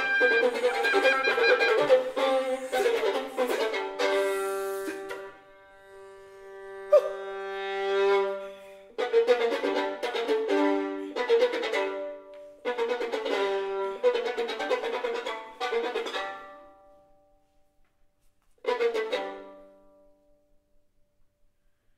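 A small contemporary chamber ensemble playing live: dense chords, then a single held note that swells and fades, a run of short detached chords, and one final short chord near the end before the piece falls quiet.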